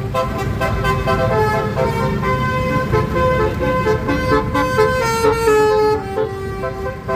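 Bus's basuri musical horn playing a tune of held notes that step up and down in pitch, with the engine rumbling underneath.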